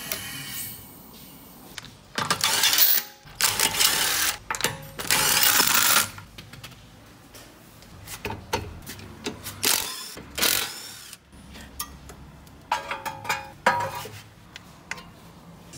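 Front-brake repair work on a car: metal clanks and clicks as the brake disc and caliper are handled, broken by three loud hissing bursts about a second each, between about two and six seconds in.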